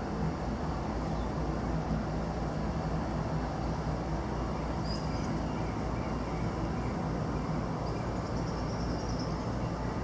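Steady outdoor background noise, a low rumble with a hiss over it, with a few faint high bird chirps about halfway through and again near the end.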